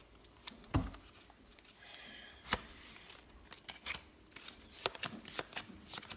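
Pokémon trading cards being handled and shuffled: scattered soft flicks and taps of card stock, with a low thump about a second in and a sharper tap about two and a half seconds in.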